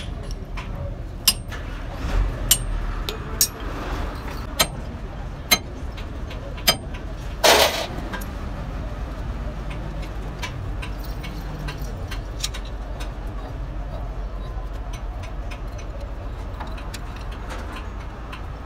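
Sharp metal-on-metal taps of a punch knocked against the axle nut of a truck wheel hub, about one a second for several seconds, then one longer, louder clatter about halfway through. Fainter ticks follow, over a steady low rumble.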